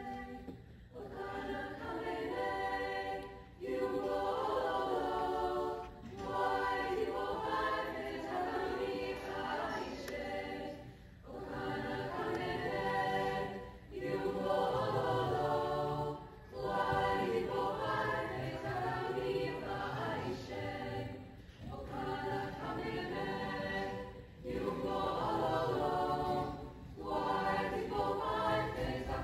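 Mixed high school choir singing a cappella, a traditional Namibian song, in repeated phrases of about two to three seconds with short breaks between them.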